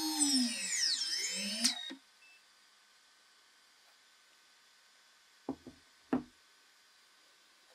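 DJI FPV drone's brushless motors spinning with no propellers fitted, a high whine whose pitch dips and climbs back with the throttle before it cuts off sharply about two seconds in. A few seconds later come two light knocks as the plastic remote controller is set down on the wooden table.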